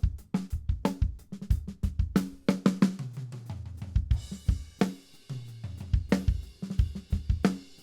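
Recorded drum kit playing a steady groove of kick drum, snare and hi-hat, heard through a blend of the kick, snare and hi-hat close microphones. A longer cymbal wash comes in about four seconds in.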